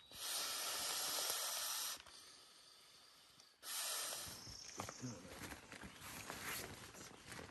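Someone blowing by mouth into the nozzle of an inflatable: two long breaths of rushing air, the first about two seconds long, the second starting about halfway through and fading. Rustling and small clicks of the inflatable being handled follow.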